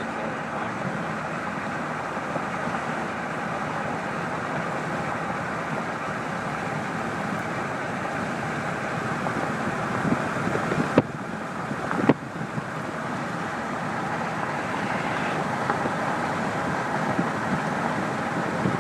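A vehicle driving along: steady engine and road noise, with two sharp knocks about a second apart a little past the middle.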